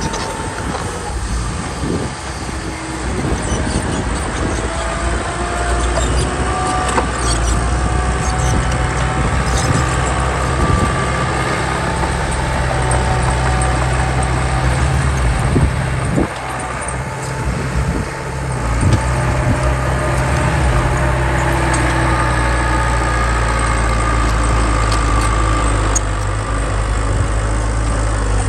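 Heavy machine's diesel engine running steadily, with a whine above it and a few knocks and clanks.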